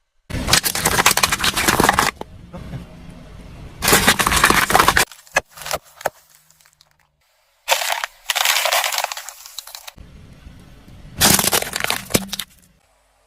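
Objects cracking and crunching under a car's tyre as it rolls over them, in four separate loud bursts of crackling.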